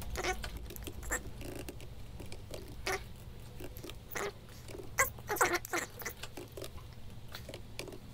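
Computer keyboard typing in short irregular bursts of keystrokes, with mouse clicks.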